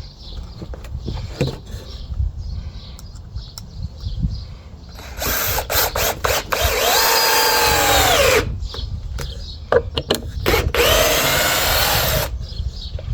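Power drill driving screws into wood: two runs of a few seconds each, the motor whine rising as it spins up, holding, then dropping as it stops, with knocks and handling clatter before and between them.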